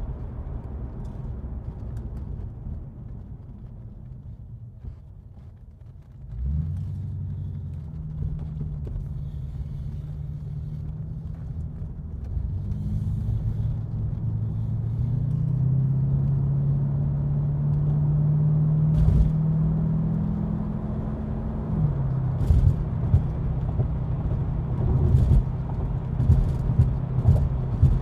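Porsche 928 V8 engine heard from inside the cabin. It is low and subdued at first, then pulls harder about six seconds in, its pitch climbing for several seconds before dropping sharply at a gear change about three quarters of the way through, after which it holds steady. A few short knocks come through near the end.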